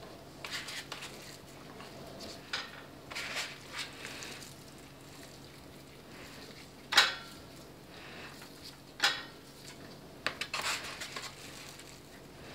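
Gloved hands breaking up raw ground beef into a large mixing bowl: irregular handling and scraping sounds with sharp clicks and knocks against the bowl, the loudest about seven and nine seconds in.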